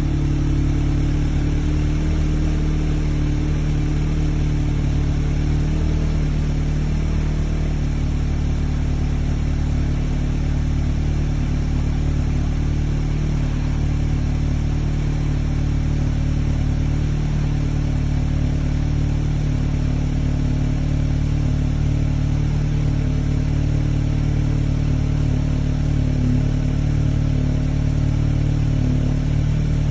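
Stock 2017 Audi S3's turbocharged 2.0 TFSI four-cylinder idling steadily just after a cold start, with no revving.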